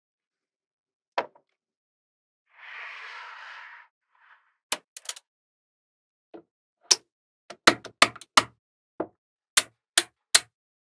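Small magnetic balls clicking sharply as they snap together, a scattered series of clicks that come thicker in the second half, with a brief soft rustle about two and a half seconds in.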